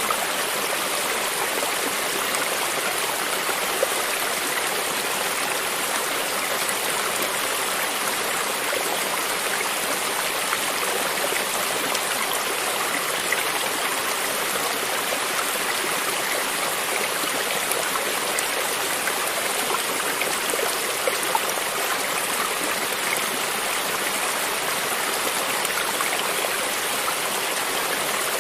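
A creek's running water flowing steadily, a continuous rushing with small splashes and trickles throughout.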